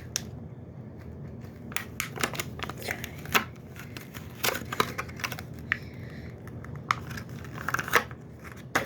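Close handling of small fidget toys and their plastic packaging: scattered clicks, taps and brief crinkling.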